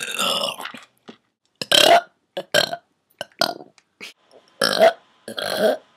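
A girl burping over and over, a string of short separate burps with brief gaps between them, the loudest about two seconds in and again near five seconds.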